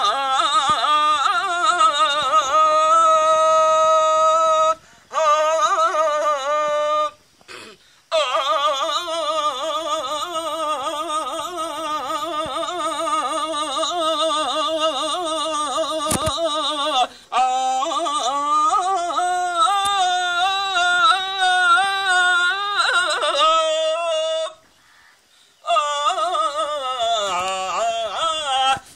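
An elderly man singing a verse (padyam) from a Telugu stage drama, solo. He draws the words out into long held notes with wavering ornaments. There are a few short breaks for breath.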